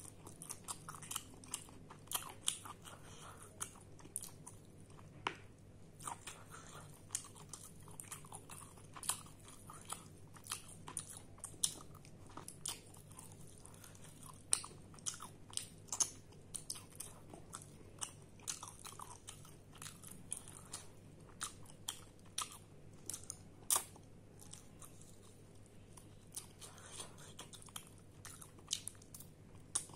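A person chewing and biting pieces of chicken curry eaten by hand: irregular short clicks and mouth sounds, a few a second.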